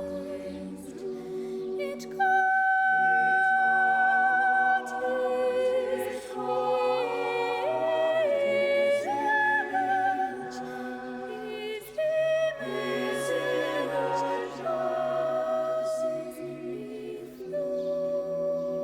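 Sacred vocal music: several voices singing long held notes with vibrato over sustained low drone tones, the melody moving by steps.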